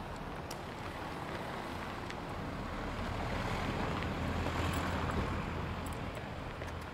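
City street ambience: a rushing noise that swells to its loudest about five seconds in and then fades, over a low hum, with faint scattered ticks.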